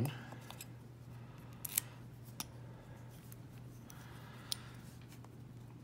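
A few faint, short metallic clicks from an old Corbin padlock being handled and worked in the hands, over a steady low hum.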